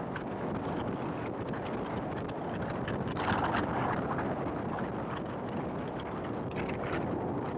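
Steady road and wind noise from a car driving along, with a louder rush of noise about three seconds in.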